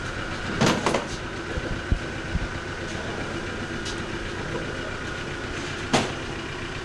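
A steady engine-like hum, with a few sharp knocks: a cluster just under a second in and one more near the end, and a couple of dull thuds around two seconds in.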